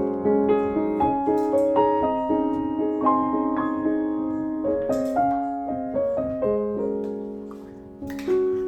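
Background piano music: a melody of single notes struck one after another and left to ring, over held chords.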